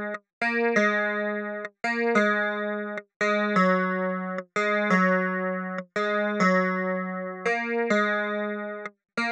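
Background music: plucked-string notes in short phrases, each broken off abruptly by a brief dead-silent gap, about every second to second and a half.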